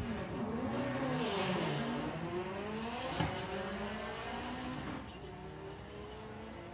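A VW Polo and a VW Beetle drag car launching together and accelerating hard down the strip. The engines rev up and drop back several times as they shift gears, and the sound fades as the cars pull away.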